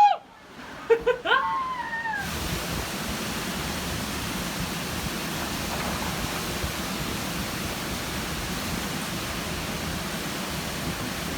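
A short high-pitched cry falling in pitch, then a steady rushing noise of wind and sea that starts abruptly about two seconds in and holds evenly.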